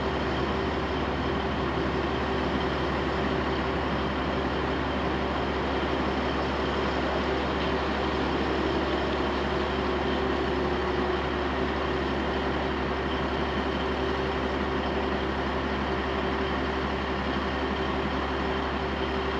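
Steady vehicle running drone, engine hum mixed with road noise, unchanging in pitch and level, as from a vehicle cruising at constant speed.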